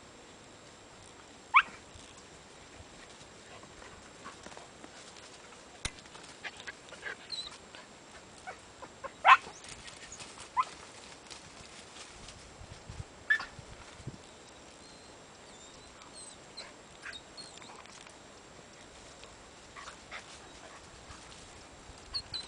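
A dog giving several sharp, short, high yelps from the brush, spread out over the stretch, the loudest about nine seconds in. Twigs and leaves rustle and click between them, and faint bird chirps come and go.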